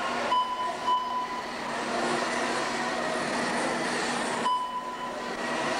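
A field of 1/10-scale radio-controlled stadium trucks racing on a dirt track: a steady din of small motors whining and tyres on the dirt. The noise thins briefly twice, about half a second in and near the end, leaving a thin steady tone.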